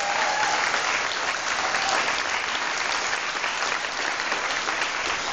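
Audience applauding: dense, steady clapping in a hall.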